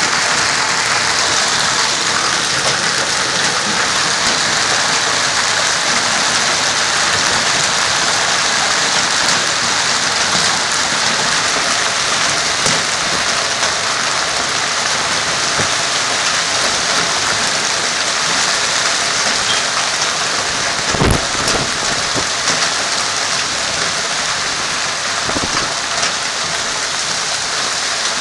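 Hail and heavy rain falling steadily on hard surfaces, with scattered sharp ticks. A loud low thump comes about three-quarters of the way through, and a weaker one a few seconds later.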